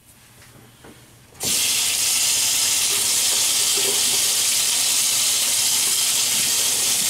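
Faucet turned on, water running steadily into a sink; it starts suddenly about a second and a half in.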